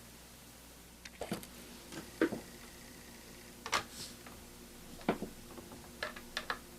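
Light, scattered clicks and taps, about ten in all at uneven intervals, from small screws and a screwdriver being worked into a laptop's plastic screen bezel.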